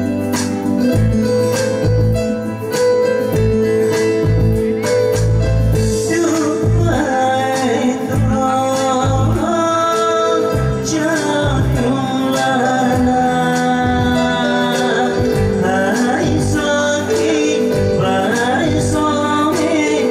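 Electronic keyboard playing an amplified instrumental with a steady drum beat; a man starts singing into a microphone over it about six seconds in.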